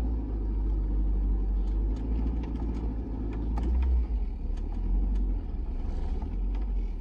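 A car driving along: a steady low engine and road rumble with scattered small rattles and clicks, loudest about four seconds in.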